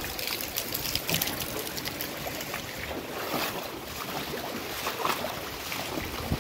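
A bicycle's front wheel pushing through floodwater, with water splashing and sloshing around the wheel and fork in irregular bursts over a steady wash of water and rain.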